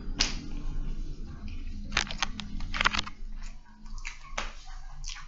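Eating sounds: cutlery clicking and scraping on a plate several short times over a low steady hum.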